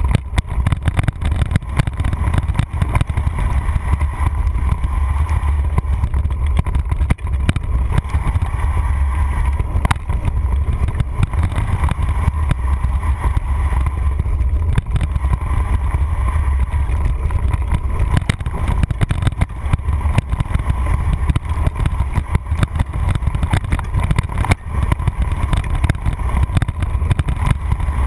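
Mountain bike descending a dirt singletrack, heard through a handlebar-mounted camera: a steady low rumble of wind and tyre noise, broken by frequent rattles and knocks as the bike bounces over the rough trail.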